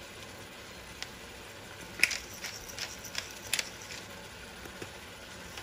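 Sharp, high clicks in a quick irregular run for about two seconds, about three or four a second, as black pepper is dispensed over raw chicken in a stainless steel pan.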